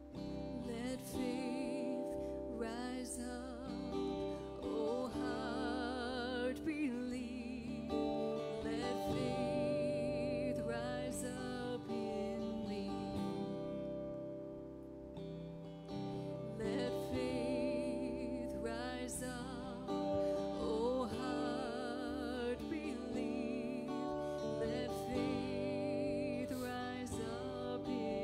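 Live worship band playing a slow song: singers holding long notes with vibrato over strummed guitar and sustained chords, in phrases with brief pauses.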